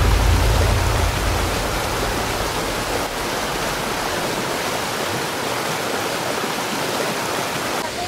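Steady rushing of a waterfall plunging into a pool, an even, unbroken wash of falling water. A low rumble fades out about a second in.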